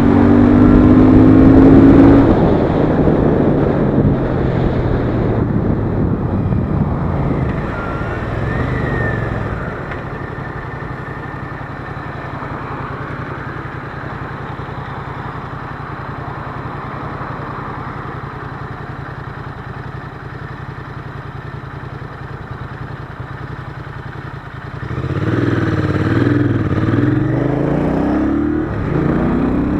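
Royal Enfield Interceptor 650's 648 cc parallel-twin engine and exhaust under way: pulling hard with rising revs at first, easing to a quieter, steady low-revs note from about ten seconds in, then revving up through the gears again about twenty-five seconds in.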